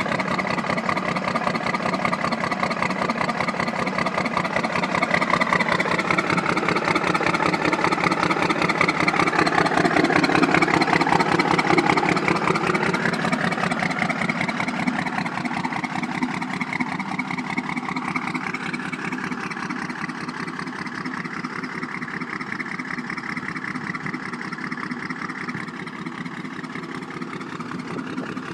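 1993 first-gen Dodge Cummins 5.9-litre inline-six diesel running through a 4-inch exhaust with a dead miss on the number 2 cylinder, caused by a blown head gasket between cylinders 1 and 2. It grows louder with some shift in pitch until about twelve seconds in, then runs steadier and a little quieter.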